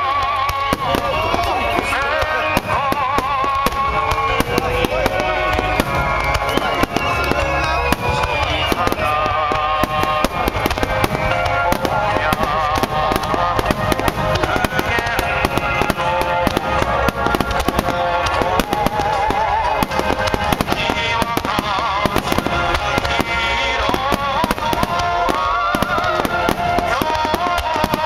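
Aerial fireworks in a dense finale barrage: shells bursting and crackling close together without a pause, with many whistling shells whose pitch wavers, rises and falls over the top.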